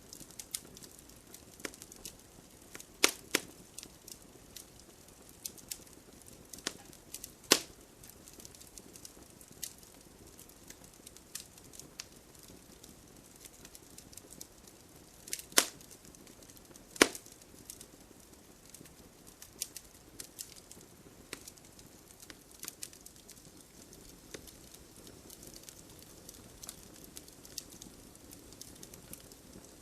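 Campfire crackling: burning wood snaps and pops at irregular moments over a soft, steady hiss of flame, with a handful of much louder pops.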